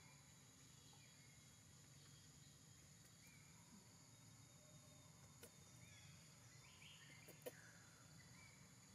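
Near silence: faint forest ambience, a steady high insect drone with a few short bird chirps, and a couple of small clicks, the sharpest about seven and a half seconds in.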